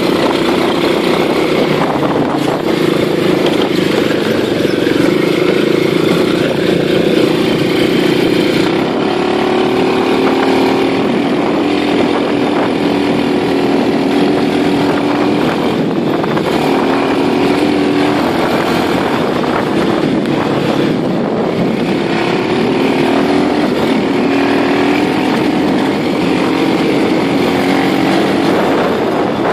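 Small vehicle engine running continuously, its pitch moving up and down several times with the throttle.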